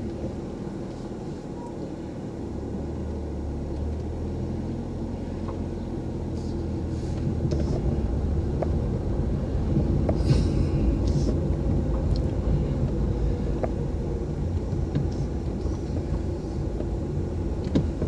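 Car engine and road noise heard from inside the cabin while driving slowly: a steady low rumble, with a few brief hissing noises in the middle.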